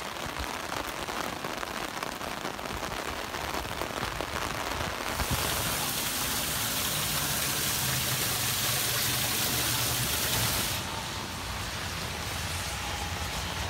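Rain falling steadily, growing louder and hissier from about five seconds in until about eleven seconds in.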